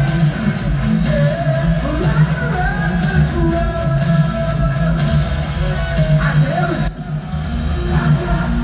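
Live rock band playing loudly through the arena PA, with electric guitars over bass and drums, heard from the arena seats. The music drops briefly about seven seconds in and then comes back in full.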